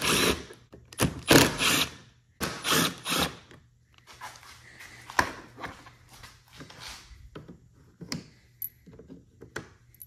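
Small cordless impact driver with a Torx 25 bit backing out snowmobile dash-panel screws, in three short bursts in the first few seconds. After that, only a few light clicks and knocks.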